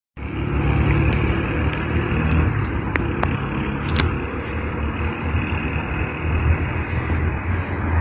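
Steady low rumble and rush of road noise from a moving car, with a few light clicks in the first half.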